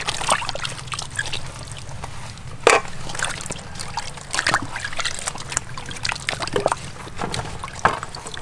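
Water sloshing and splashing in a large metal basin as chunks of bitter melon are handled and dropped in, with small knife scrapes as they are cored. The sounds come irregularly, the sharpest splash about three seconds in.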